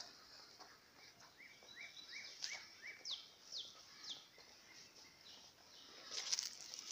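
A songbird singing a phrase of five quick rising whistled notes, then three falling ones, over a steady high hiss of insects. A brief rustle comes near the end.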